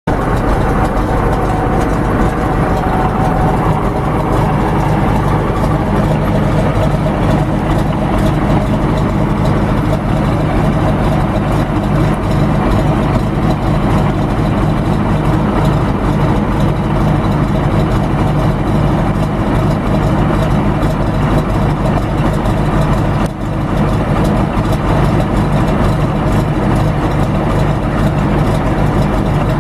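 Vintage bus engine idling steadily with an even low throb.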